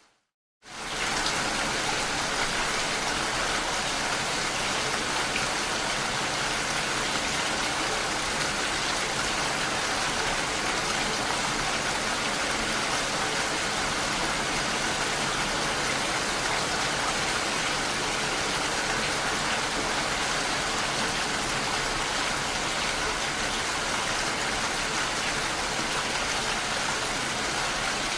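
Steady rain falling, an even, dense hiss without separate drops standing out. It starts from a brief moment of silence and fades in quickly about a second in, then holds level.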